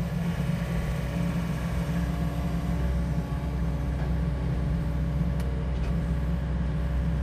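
SANY SY80U mini excavator's diesel engine running steadily, its hydraulics working as the boom and thumb swing toward a pile of maple rounds.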